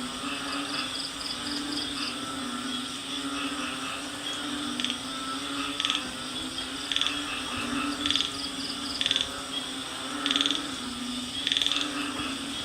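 Night chorus of tropical frogs and insects: a steady low frog chorus under a continuous high insect whine. From about five seconds in, loud short rattling calls repeat roughly once a second.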